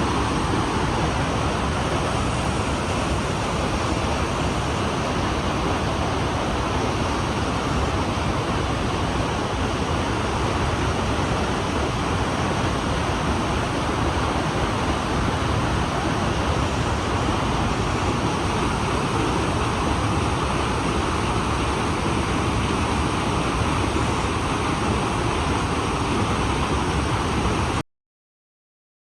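Large waterfall heard from close by: a loud, steady rush of falling water that cuts off abruptly near the end.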